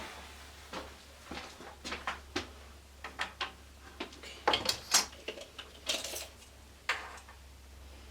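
Kitchen crockery and utensils clinking and knocking, a string of short, sharp clicks. The busiest and loudest cluster comes about four and a half seconds in, while tea is being made.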